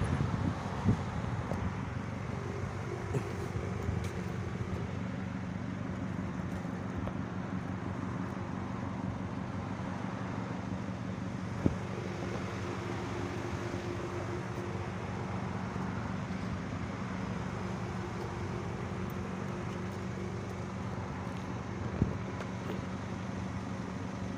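A car's engine running with a steady hum under road-like noise. Two sharp clicks come about halfway through and near the end.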